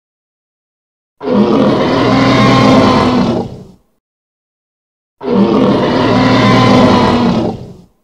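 Tyrannosaurus rex roar sound effect played twice: the same long roar of about two and a half seconds, repeated with a second and a half of silence between.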